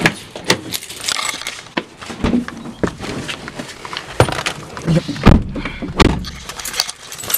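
Car keys jangling and clattering, with knocks and handling sounds of someone getting into a Volkswagen sedan. Two heavy thumps come about five and six seconds in, the door shutting.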